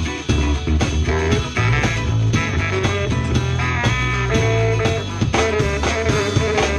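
Live horn band jamming an upbeat funk-jazz groove: drum kit, bass, guitar and held horn notes playing together.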